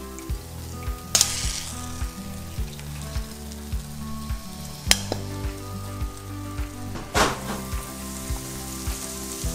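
Chicken frying in hot oil, a steady sizzle, with a loud surge of sizzling about seven seconds in as more marinated chicken goes into the oil. A sharp click comes about five seconds in.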